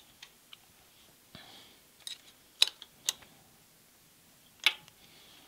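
Sharp metal clicks and taps from hand work on a milling machine while its head is being adjusted for tram, with three louder clicks in the middle and a few faint ticks around them.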